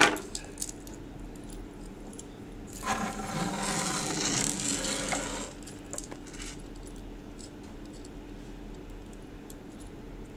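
Hands handling small metal tools and parts on a tabletop: a few clicks, then a couple of seconds of rustling, jangling metal, then light ticks, over a faint steady hum.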